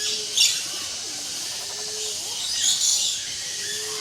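Mixed birds calling: a sharp high call about half a second in and a louder burst of high chirping around three seconds, over soft low repeated notes and a constant high chorus.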